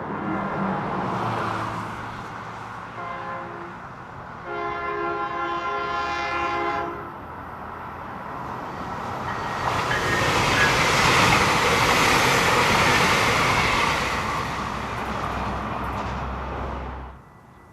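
Train horn sounding at a crossing: a short blast about three seconds in, then a longer one lasting about two and a half seconds. The train then passes close by with a loud rumble and rattle that cuts off suddenly near the end.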